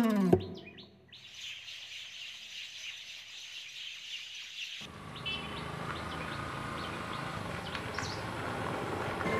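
Birds chirping over a rural outdoor background. About five seconds in, the background changes to a fuller one with a steady low rumble, and the chirps grow clearer.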